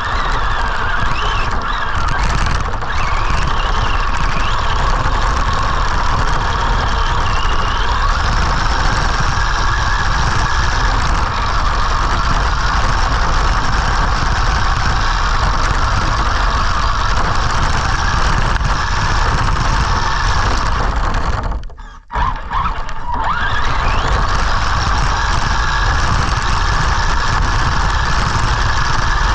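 Arrma Senton RC short-course truck's electric motor and geartrain whining steadily as it drives, the whine sliding up and down with the throttle in the first few seconds. The sound drops out briefly about three-quarters of the way through, then picks up again.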